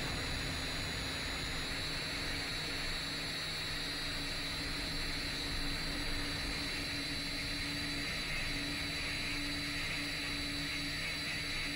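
A 10-inch FPV drone's motors and propellers running steadily in flight: a continuous high whine over hiss, with a lower hum that comes and goes.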